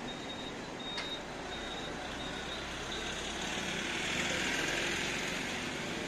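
Vehicle engine running steadily, with a high-pitched beep repeating in short broken pulses through the first half.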